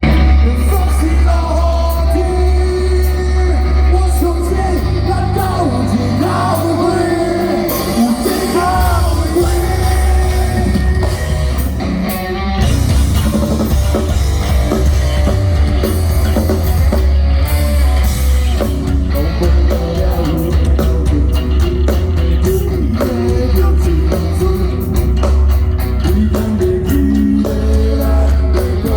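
Live rock band performing with a singing voice over guitars, with a heavy, booming bass.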